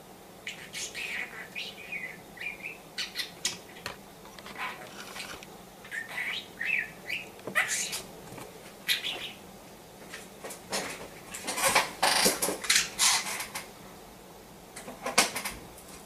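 Budgerigar giving short chirps, mixed with sharp clicks and rattles as it pecks at the toys hanging on its play gym, a bell and a mirrored styrofoam disco ball. The clicks come thickest and loudest late on.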